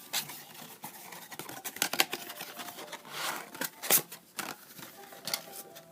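Trading-card packaging being handled: foil booster packs and a small cardboard box rustling and crinkling, with sharp taps and clicks as they are picked up and set down. The loudest taps come about two and four seconds in, with a longer crinkling rustle between them.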